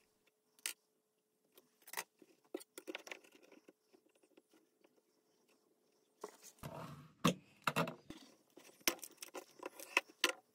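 A sharp blade scoring 2 mm rigid polystyrene board along a steel ruler: several short scraping runs, with irregular sharp clicks and knocks as the ruler and board are handled.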